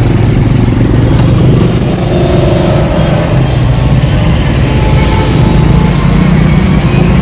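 Riding on a two-wheeler through city traffic: the engine and road noise run steadily, with a heavy low rumble throughout.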